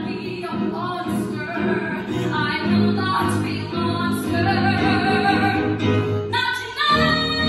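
A woman singing a musical-theatre ballad solo over instrumental accompaniment. About seven seconds in, the voice gives way to a held instrumental chord.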